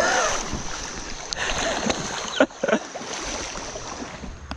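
Creek water rushing and splashing around someone wading, with a few sharp splashes or knocks.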